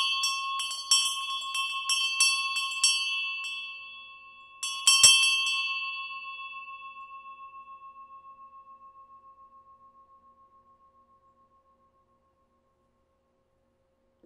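Small cast bronze bell swung by hand so its clapper strikes it about three times a second, then twice more about five seconds in. The bell then rings on with a clear tone that pulses slowly as it fades away over about six seconds.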